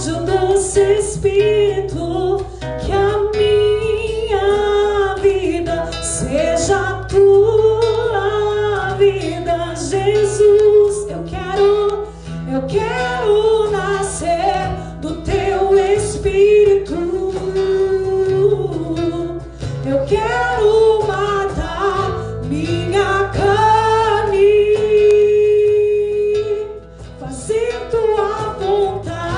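A woman singing a gospel song, accompanied by strummed acoustic guitar and a cajón keeping the beat.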